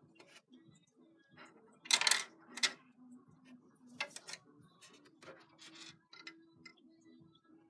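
Small plastic toy pieces clicking and clattering as they are picked up and handled on a plastic dollhouse. The loudest clatter comes about two seconds in, and a few lighter clicks follow.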